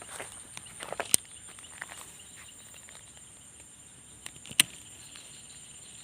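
Steady high-pitched insect chirring, with light rustling and two sharp clicks, one about a second in and one past the middle.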